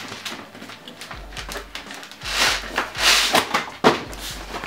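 Plastic air-column packaging rustling and crinkling in several short bursts as a cardboard whisky tube is pulled out of it, mostly in the second half.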